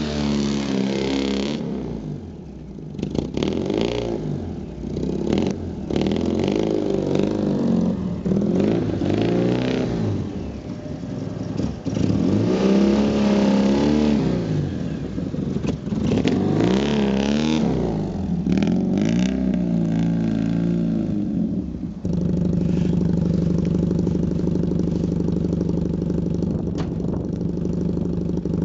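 Honda N600's small air-cooled two-cylinder engine revving up and down again and again under hard driving, then settling to a steady idle late on.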